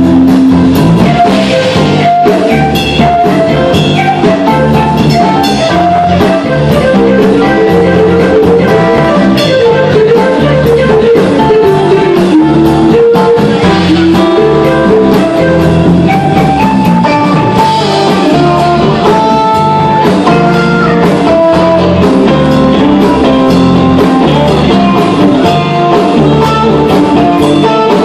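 A live band playing a song: electric and acoustic guitars over bass guitar and drums, with a guitar line moving through a melody and a steady beat.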